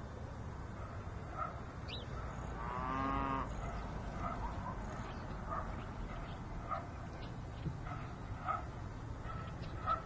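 Dog barking in short repeated barks about once a second, with one longer drawn-out call about three seconds in, over a steady low rumble.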